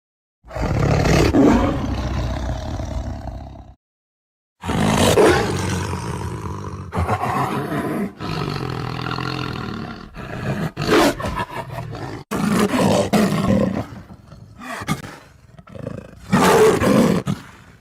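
Tiger roaring and growling: one roar of about three seconds, a short break, then a long run of roars and growls with brief gaps, ending in a loud roar near the end.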